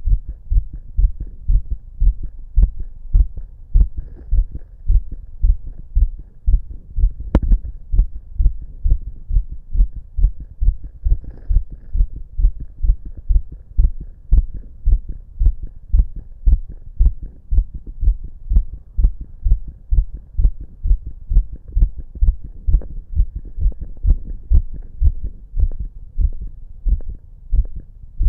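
Fast, regular human heartbeat heard by auscultation of the chest, a steady train of low lub-dub thumps. A single sharp click about seven seconds in.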